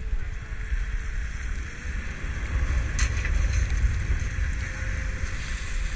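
A boat's outboard motor running steadily at trolling speed under wind buffeting the microphone, with water rushing along the hull and a single light tap about three seconds in.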